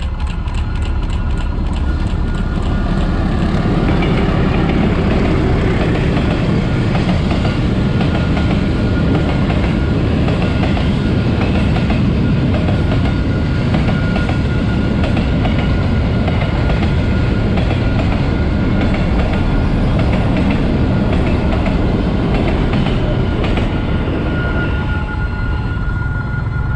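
Diesel freight train passing close by: the locomotive draws near, then a long line of covered freight wagons rumbles and clatters steadily over the rails, with a thin high whine from the wheels running through it.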